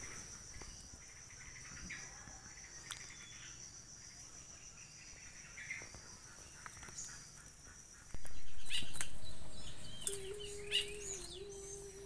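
A steady high insect drone with a few scattered short bird chirps. About eight seconds in the background suddenly gets louder, and near the end a low steady hum comes in under several rising and falling bird calls.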